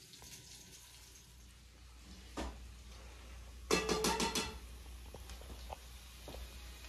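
Metal cookware clattering: a single clink, then a short burst of rattling clinks about halfway through, followed by a few lighter taps, over a low steady hum.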